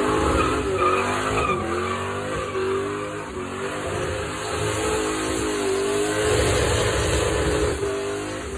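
Mercury Cougar's V8 held at high revs in a burnout, the revs wavering up and down, over the hiss and squeal of the rear tyres spinning on the pavement.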